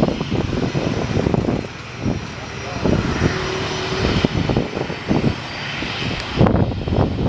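Boeing 737-400 jet engines (CFM56 turbofans) running as the airliner comes in to land, a steady jet rush with buffeting on the microphone.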